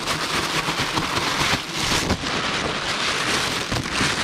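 Loud, dense rustling hiss with many small crackles and knocks, like rain or wind on the microphone.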